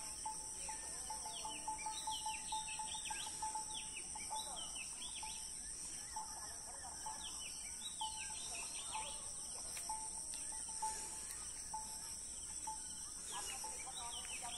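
Small birds chirping in quick clusters of high notes, over a steady high-pitched insect drone, with a short mid-pitched bird note repeated about once a second.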